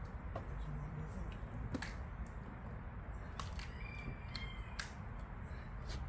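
Scattered light clicks and knocks as gear is handled at the stern of a plastic rowboat while the motor and battery are fitted, over a steady low rumble. Brief high bird calls come about four seconds in.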